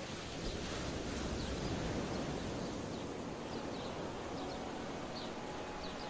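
Waves washing on a shore: a steady rush of surf and wind noise that swells about two seconds in and then eases. A few faint, short high chirps come near the end.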